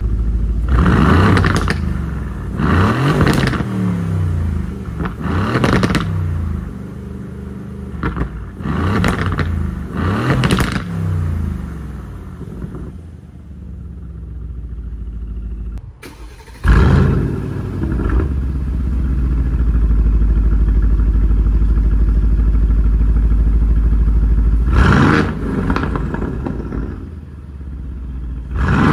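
2019 Aston Martin Vantage's Mercedes-AMG M177 twin-turbo V8 blipped through its exhaust: a series of sharp revs from idle, a quieter idle, then a sudden loud start into several seconds of steady running and a few more revs. The earlier revs are with the stock secondary catalytic converters; by the end, the secondary cats are replaced with straight cat-delete pipes.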